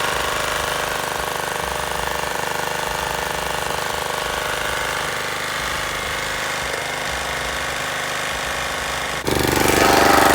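Riding lawn mower's small engine running steadily under load while mowing, with a fast, even chatter; it gets suddenly louder near the end.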